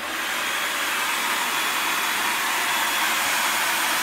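Vacuum cleaner running with a steady, even noise and a faint high whine.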